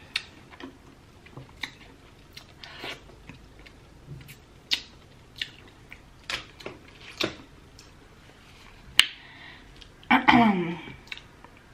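Close-miked eating sounds of a person chewing spicy seafood boil: scattered wet smacks and clicks of the mouth at irregular intervals. Near the end comes a short wordless vocal sound, the loudest moment.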